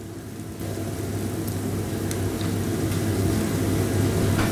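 Dough balls deep-frying in hot oil: a steady sizzle over a low, steady hum, growing louder from about half a second in.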